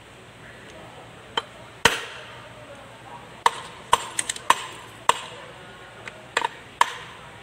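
Hammer blows on the Kubota B6001 tractor's transmission, tapping a gear shaft into place in the open gearbox case during reassembly: about ten sharp metal knocks at uneven spacing, each with a short ring.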